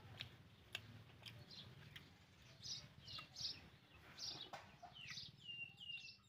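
Faint bird chirps: a series of short, high peeps, several falling in pitch near the end, with a few faint clicks in the first couple of seconds.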